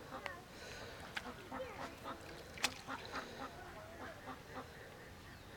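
Ducks quacking in a rapid series of short calls, with one sharp click about two and a half seconds in.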